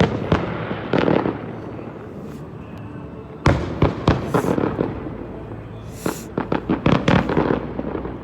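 Aerial fireworks bursting overhead. A couple of bangs come early, then a sharp loud bang about three and a half seconds in, then a rapid run of bangs and crackles near the end.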